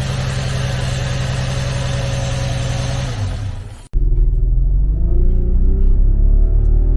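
Infiniti FX35's VQ35 3.5-litre V6 idling steadily just after a misfire repair, running smoothly enough that the owner says it sounds good. About four seconds in it cuts off abruptly and is replaced by loud music with deep, droning low notes.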